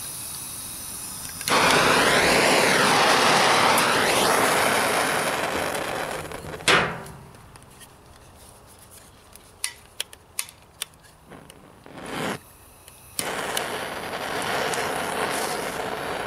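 Hand-held propane torch running with a steady rush of gas and flame, then cutting out with a sharp pop. Several sharp clicks follow as the torch is relit, and it catches again and burns steadily near the end. The torch keeps going out because its propane tank is almost empty.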